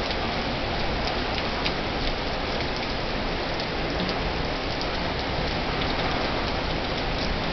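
Heavy rain pouring down steadily, with a few faint ticks among the hiss.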